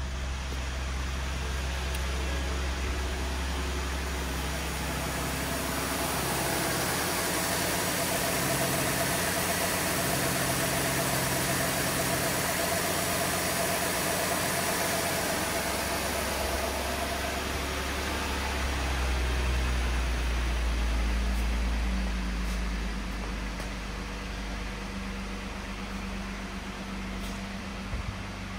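2012 Ford F-150's 3.7-litre V6 idling steadily in Park. A hissing, whirring layer grows a little louder through the middle stretch, then eases off.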